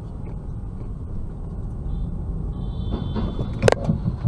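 Steady road and engine rumble from inside a moving car, a brief high squeal, then a loud crash of cars colliding about three and a half seconds in, followed by a few smaller knocks and clatter.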